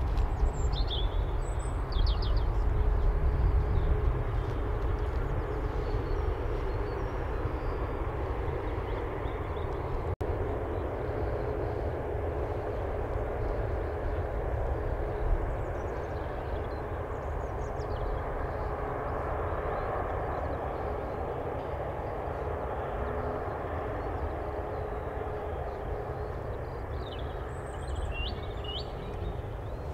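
Distant Airbus A350-941's Rolls-Royce Trent XWB engines running at taxi power: a steady jet whine over a low rumble. A few short bird chirps come near the start and again near the end.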